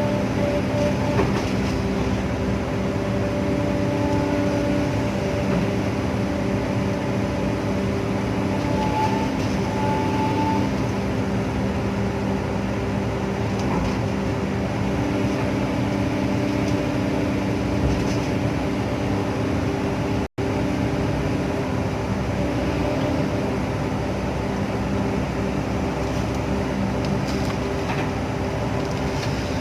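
Hydraulic excavator's diesel engine running under working load: a steady, loud drone made of several steady tones, with small shifts in pitch as the hydraulics are worked.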